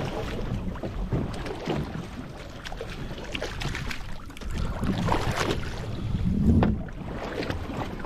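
Water sloshing against the hull of a drifting small fishing boat, with wind on the microphone. It grows louder for a moment about five seconds in and again about six and a half seconds in.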